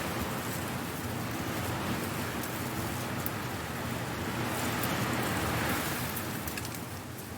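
Strong wind blowing dry leaves about: a rustling hiss that swells in gusts, loudest about five seconds in, with scattered light crackles of leaves.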